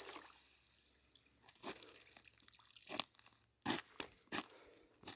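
A few short sharp clicks and crunches, single ones at first and then several close together in the second half.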